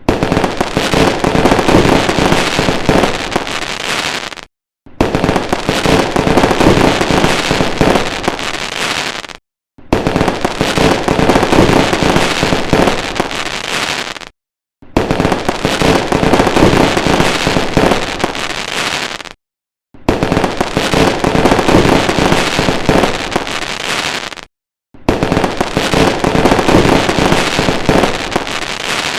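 Fireworks sound effect: dense, rapid bangs and crackling, in bursts of about four and a half seconds cut apart by short gaps of silence, repeating six times.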